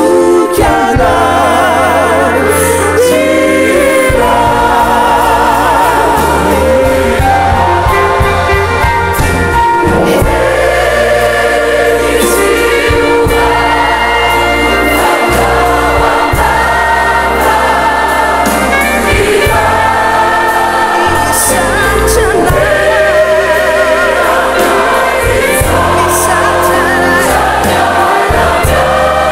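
Large mixed choir of men's and women's voices singing a choral piece, with voices wavering in vibrato on held notes.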